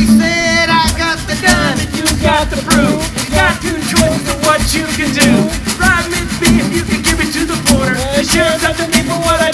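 Live jug-band music, an instrumental stretch: two acoustic guitars strumming and a washboard keeping a rhythm of sharp, evenly spaced scrapes, under a wavering lead melody line.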